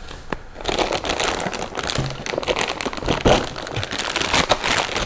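Clear plastic wrapping crinkling and rustling as a gun part is handled inside it: a dense run of irregular crackles starting about half a second in.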